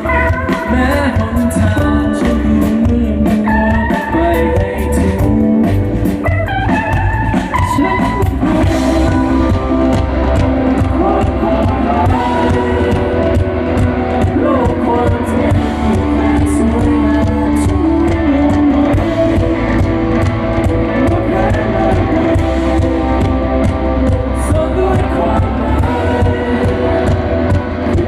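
Live band playing a song: guitars over bass and drums, with a singer's voice.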